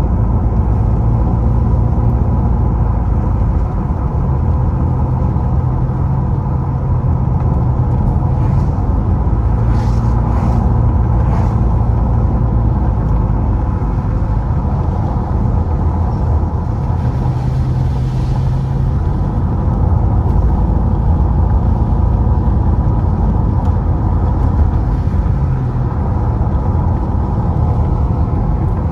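Car driving on a wet road, heard from inside the cabin: a steady low rumble of engine and tyres, with a low engine hum that swells and fades several times.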